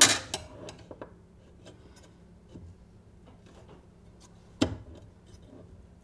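Metal fletching jig being handled: a sharp click as the glued feather's clamp is set onto the Bitzenburger jig, a few lighter clicks and ticks while it is seated, and another sharp click about four and a half seconds in.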